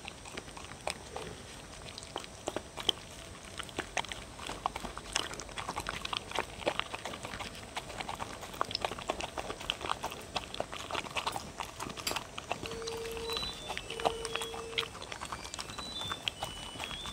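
Two dogs eating chopped chicken, egg and bell pepper from wooden bowls close to a microphone: irregular chewing and mouth-smacking clicks.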